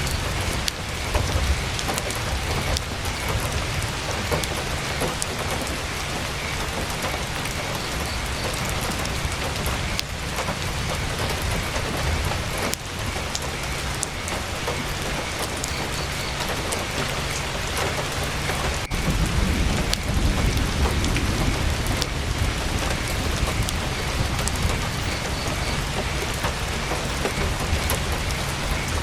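Heavy rain drumming steadily on tent canvas, with scattered sharp ticks. A low rumble swells about twenty seconds in.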